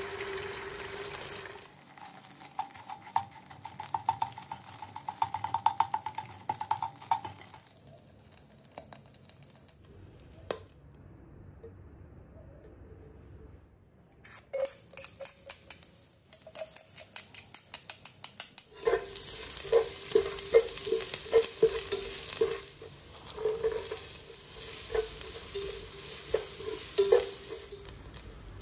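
Chopped onion and garlic sizzling in oil in a frying pan while a spatula scrapes and taps against the pan, louder and steadier from about two-thirds of the way in. Before that there are stretches of scattered taps and clicks, with a short quiet gap between them.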